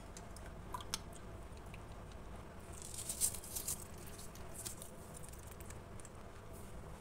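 Small Styrofoam balls sprinkled by hand into a glass bowl of clear liquid, a light crackly pattering that lasts about two seconds, after a couple of faint clicks near the start.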